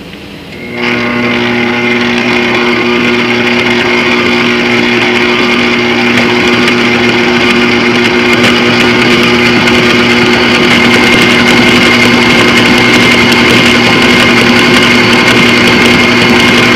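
Electric stand mixer switched on about a second in, running steadily with a motor hum and a high whine as its scraper-edged paddle beats cake batter; it stops at the very end.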